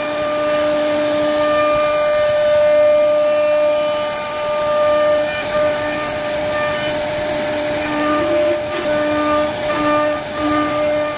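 CNC router spindle running with a steady high-pitched whine and hiss as its bit carves a relief pattern into a solid wood panel. A second, lower tone drops out and returns several times.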